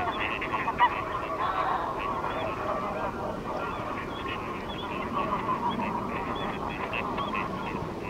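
A flock of greylag geese honking, with many short calls overlapping without a break.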